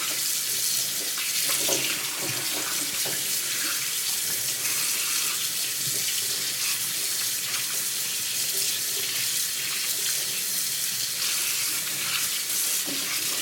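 Kitchen faucet running steadily into the sink as turkey necks are rinsed under it, with a few faint knocks of handling in the first seconds.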